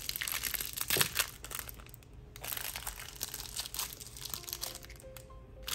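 Thin clear plastic wrapper crinkling as it is torn open and pulled off a small squishy toy, dense crackling for the first couple of seconds, then scattered crinkles.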